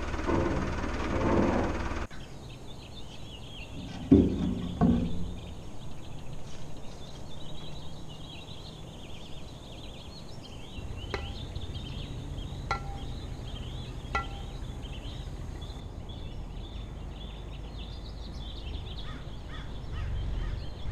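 A tractor engine running for about two seconds, then small birds chirping and singing over a meadow above a low rumble. There are two loud dull thumps about four seconds in, and three sharp taps about a second and a half apart near the middle.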